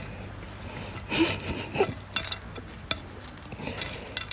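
A hand picking through french fries on a plate: rubbing and scraping of the fries against the plate, louder twice about a second in, then a few light clicks.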